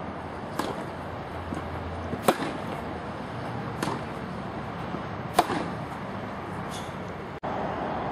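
Tennis rally: racket strings striking the ball about every one and a half seconds, alternating sharp hits from the near player with fainter ones from the far end. The background noise changes abruptly near the end.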